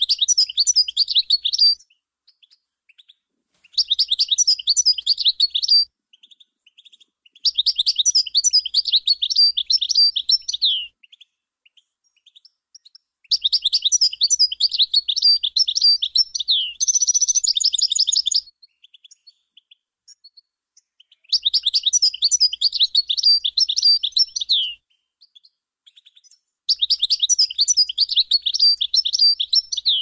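European goldfinch singing: six phrases of rapid, tinkling twitter separated by short pauses, one of them ending in a harsh, buzzy trill near the middle.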